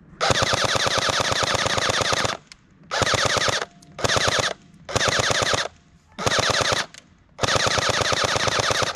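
Airsoft MP5 firing on full auto in six bursts. The first burst lasts about two seconds and the rest are shorter, each a rapid even rattle of shots.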